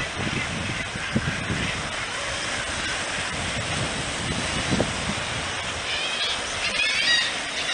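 Steady rushing noise of wind and sea, with low wind buffeting on the microphone now and then. From about six seconds in, seabirds give a few wavering high calls.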